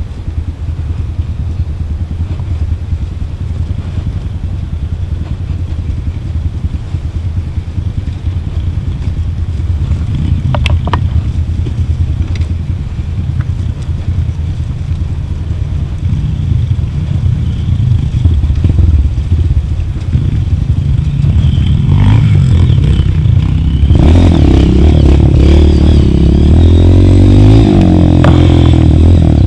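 Trail motorcycle engine running on a rough descent, with clattering and scraping from the bike over the ground. The engine gets louder toward the end, its pitch rising and falling as it revs in the last few seconds.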